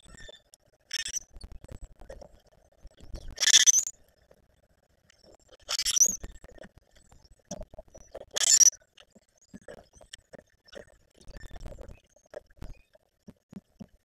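Wild birds at a seed feeder: four short, harsh, high calls, the loudest about three and a half and eight and a half seconds in, over scattered clicks and taps of birds hopping and pecking on the feeders.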